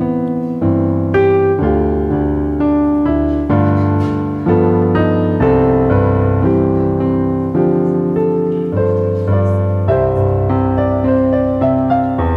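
Slow, gentle piano music, with notes and chords struck about once a second and left to ring.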